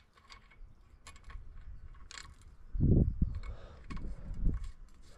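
Hand tools and small metal parts being handled: scattered clicks and clinks, with a few dull low thumps, the loudest about three seconds in.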